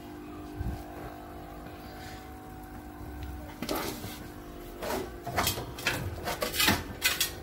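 Small electric air pump motor for a fish tub humming steadily. Irregular clicks and knocks join it from about three and a half seconds in.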